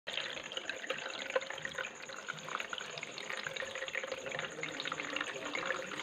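Water trickling and splashing down the tiers of a small cement tabletop waterfall fountain into its pebble-filled basins: a steady splashing with many small drips.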